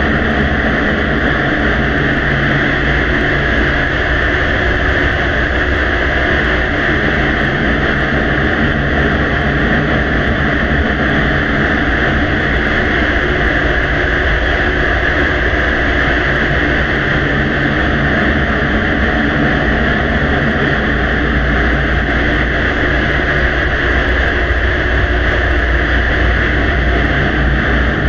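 Steady loud hiss over a low rumble, with no distinct events: the background noise of a very quiet recording that has been heavily amplified.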